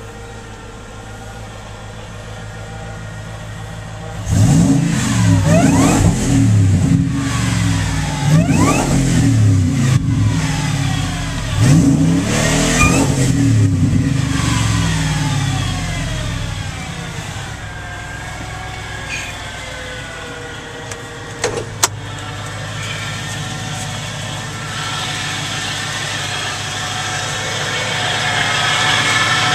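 Ford SVT Lightning's supercharged V8 idling, then revved three or four times from about four seconds in, each rev climbing sharply and falling back. It settles to a steady idle after about sixteen seconds, with a couple of sharp clicks later on, and is heard from inside the cab.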